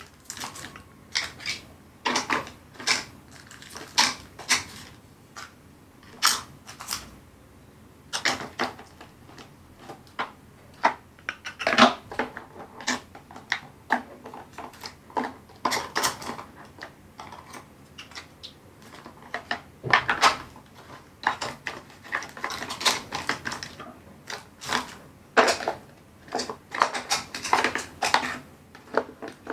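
Irregular clicks, taps and clatters of hard plastic as diamond-painting trays, bead containers and a plastic toolbox tray are handled and set down on a table.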